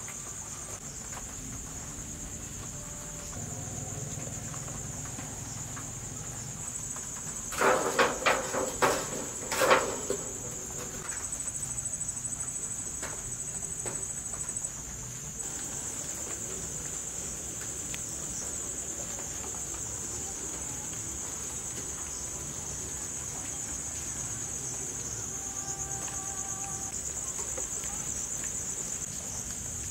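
Crickets chirping in a steady, high, continuous trill, with a brief cluster of sharp knocks about eight to ten seconds in.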